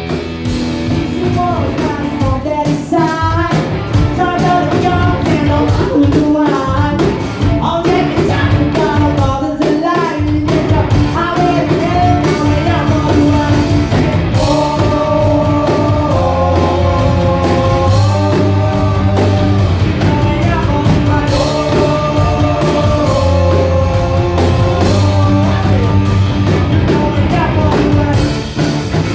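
Live rock band playing, with a singer over the amplified band.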